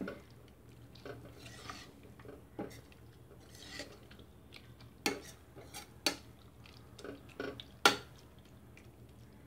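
A metal spoon stirring beef curry in a stainless steel pressure cooker pot, scraping and clinking against the pot. Sharper knocks come about five and six seconds in, and the loudest near eight seconds.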